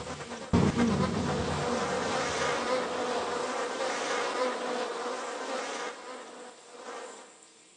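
Dense buzzing noise texture from an experimental sound-art performance, over a steady hum. It cuts in sharply about half a second in, drops back around six seconds and fades away near the end.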